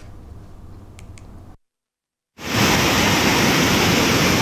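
Floodwater rushing in a loud, steady roar of noise that starts abruptly after a second of silence, about two and a half seconds in. Before that there is only a faint low hum.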